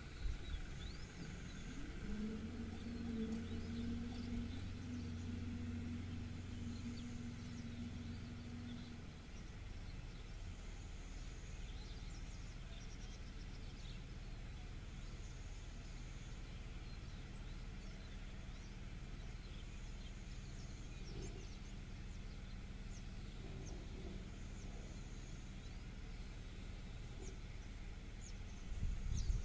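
Outdoor ambience with a steady low rumble. An engine-like drone rises in pitch about two seconds in and holds until about nine seconds, then fades into the rumble. Faint bird chirps come and go.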